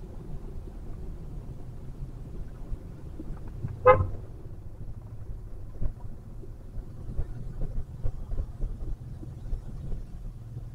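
Steady low road and engine rumble heard inside a Toyota Vellfire's cabin in slow city traffic. A single short car-horn toot sounds about four seconds in.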